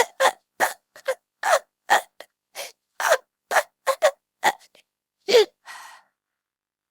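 A cartoon character's voice hiccuping over and over, short sharp hics about two a second. They stop about five and a half seconds in with a brief breathy hiss.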